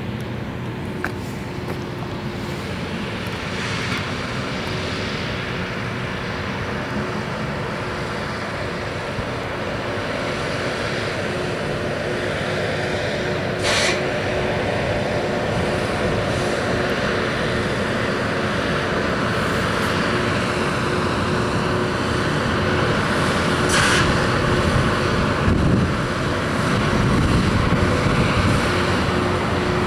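Diesel freight locomotives running as the train moves past, a steady engine rumble with a low hum that grows gradually louder. Two brief sharp noises come about halfway through and again near the end.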